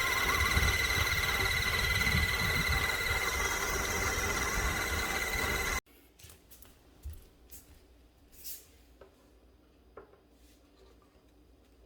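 A small motor or blower runs with a steady whirring hiss and a high whine, then cuts off abruptly about six seconds in. After that there are only a few faint clicks and ticks.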